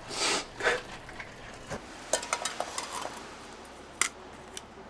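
Two short rasping noises, then a run of light clicks and knocks, with one sharp click about four seconds in: the clatter of small objects being handled.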